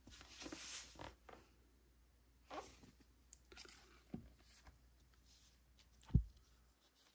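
Vinyl LP record jackets being flipped through in a plastic crate: the cardboard sleeves rustle and slide against each other with small clicks. A little after six seconds a record falls forward against the stack with a short, low thump, the loudest sound.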